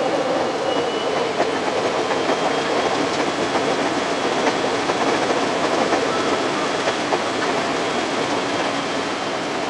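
Running noise of a 521-series electric multiple unit heard from inside the cab: a steady rush of wheel and track noise with frequent irregular clicks of the wheels over the rails and a faint high whine at times.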